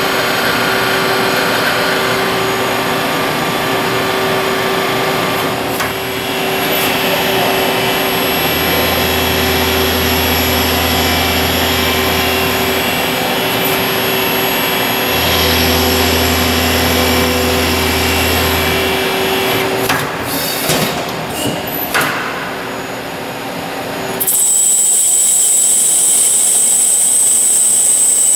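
Miyano ANX-42SYY CNC lathe machining a metal part: steady spindle and cutting noise with a constant hum. A few sharp clicks come about 20 seconds in, and a loud high-pitched hiss starts suddenly near the end.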